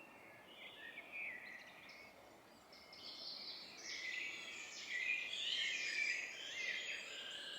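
Woodland songbirds singing, several chirping songs overlapping, becoming busier and louder about three seconds in.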